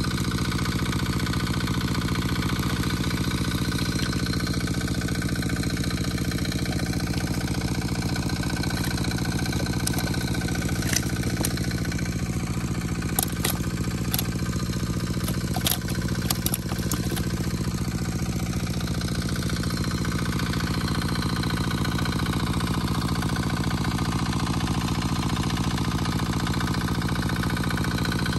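Water pump's small engine running steadily at an unchanging speed, with a few sharp clicks around the middle.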